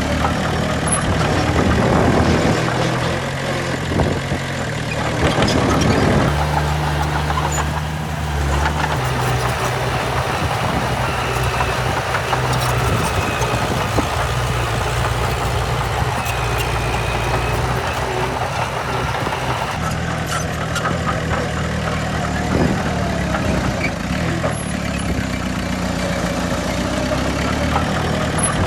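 Diesel engines of heavy earthmoving machinery running steadily, the low engine note shifting for a few seconds as the machines work.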